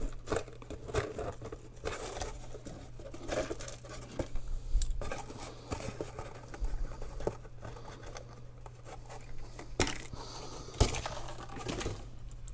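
Cardboard box being handled and its flaps folded, with rustling and scraping that comes and goes irregularly. Two sharper clicks come near the end.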